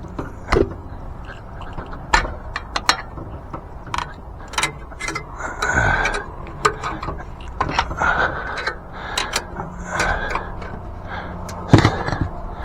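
Jack being worked to raise a motorcycle engine into its frame: irregular mechanical clicks and metal knocks with a few short squeaks.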